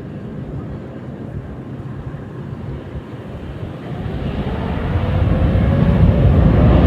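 Boeing 777X's GE9X turbofan engines: a low jet rumble that grows steadily louder from about four seconds in as the aircraft draws near, with a faint whine rising slightly in pitch.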